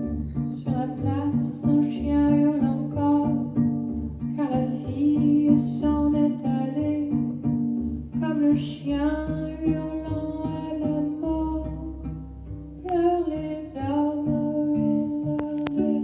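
A woman singing a slow song in French, accompanied by cello bass notes and held organ-like chords from a harmonium.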